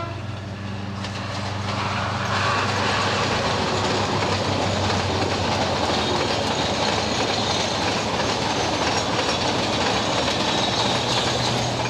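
Meter-gauge passenger train rolling past, its coach wheels clattering over the rail joints; the sound grows louder about two seconds in as the coaches come close and then holds steady.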